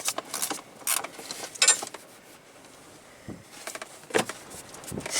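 A few separate clicks and scrapes of hand tools working at a stubborn screw in a plastic cover, with a quiet stretch in the middle.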